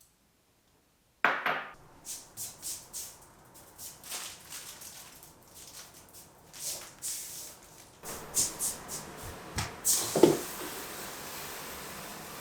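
Household objects being handled: a sudden clatter about a second in, then a run of light taps and clicks, a dull knock near the end, and a steady hiss starting right after it.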